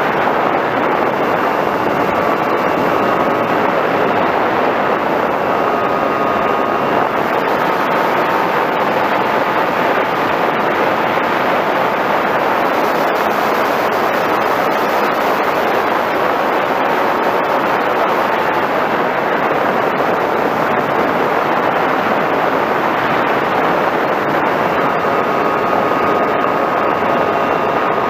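Rushing wind and the whine of an FPV Raptor RC plane's electric pusher motor and propeller in flight, heard through the plane's own onboard camera. The steady rush carries a faint motor tone that shifts in pitch now and then as the throttle changes.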